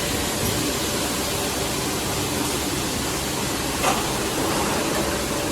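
Closure cap waterfall sorting machine running, a steady even mechanical noise, with one brief click about four seconds in.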